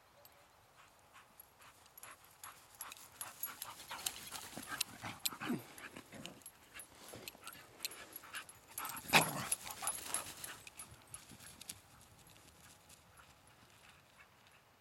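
Two dogs, a boxer and a tan mixed-breed, playing together and making short panting and whining play noises amid quick rustling and clicking. The sounds build from about two seconds in, are loudest about nine seconds in, and die away near the end.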